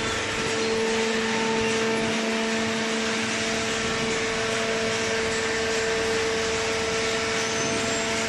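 A machine running with a steady hum over an even hiss.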